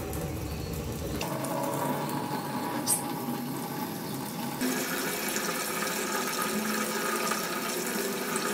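Water running from a wall-mounted kitchen faucet into a stainless steel sink, a steady stream splashing and gurgling down the drain. The sink is being filled to test the newly fitted sink drain for leaks. The splashing changes tone abruptly about a second in and again a little past midway.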